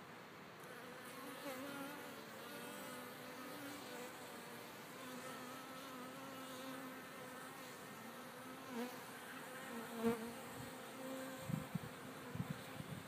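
Honey bees buzzing close by at the hive entrance, several wavering buzzes overlapping, the sign of an overwintering colony alive and flying on a warm winter day. A few low thumps come near the end.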